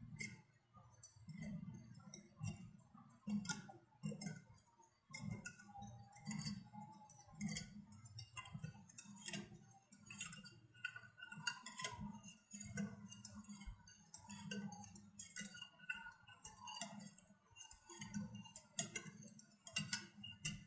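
Wire whisk stirring a milk mixture in a white bowl, its wires ticking and scraping against the bowl in a faint, irregular run of light clicks, about two or three a second.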